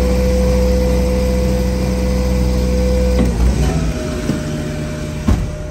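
Hydraulic outrigger leg of a 2008 GMC forestry bucket truck being raised: a steady whine over the engine running under hydraulic load. The whine stops a little over three seconds in, leaving the engine running more quietly, and a sharp click follows near the end.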